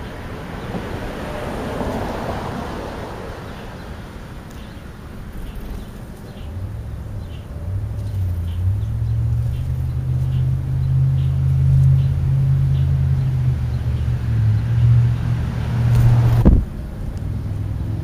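A low engine hum, as of a motor vehicle running nearby, rising in level about a third of the way in and holding for about ten seconds, with a sharp knock near the end as it drops away.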